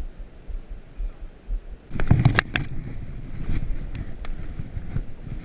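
Wind rumble on the microphone, then from about two seconds in a quick run of snaps and cracks of twigs and branches being pushed through, with a few more snaps later.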